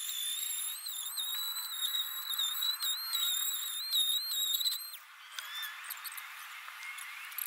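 Small corded electric detail sander running with a high, wavering whine, switched off about five seconds in.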